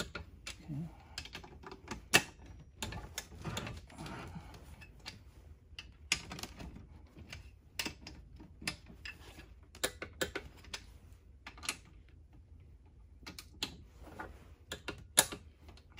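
Harbor Freight torque wrench ratcheting on steel winch mount bolts: irregular runs of sharp clicks, with two much louder clicks about two seconds in and near the end, as the bolts are tightened to 33 ft-lbs.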